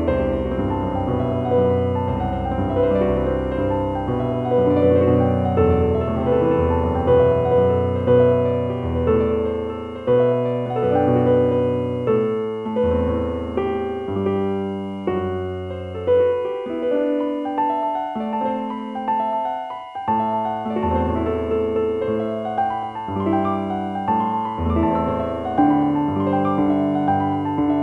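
Slow, gentle piano music: single notes ringing out and fading over held low notes.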